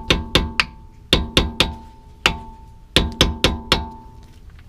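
Hammer blows ringing on steel, about eleven sharp strikes in three uneven groups. Each strike rings briefly at the same pitch.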